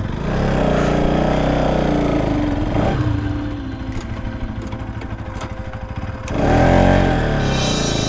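Motorcycle engine running, its pitch rising and falling twice as it is revved, with a steady low firing beat in between.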